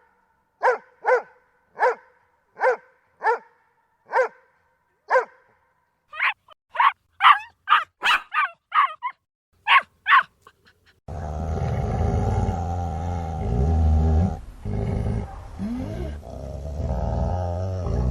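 A Doberman barks steadily, about eight deep barks roughly a second apart. It is followed by a puppy's quicker, higher-pitched barks, and then, from about eleven seconds in, several dogs growling low and continuously.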